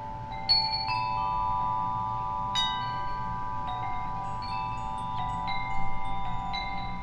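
Metal wind chime ringing, struck every second or so, its several pitched tones overlapping and ringing on long after each strike. The strongest strikes come just after the start and again a little before the end.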